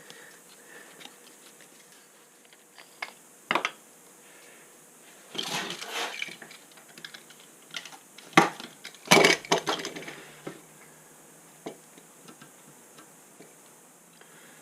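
Work sounds on a wood stove door being fitted with a new fibreglass gasket: a few sharp clinks and knocks of hard objects, with a stretch of rustling and scraping about five to six seconds in.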